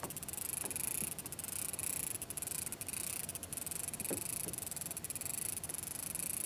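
Water lapping against a kayak hull under a steady hiss, with a few small plops and light clicks from the fishing reel as a fish is reeled up slowly.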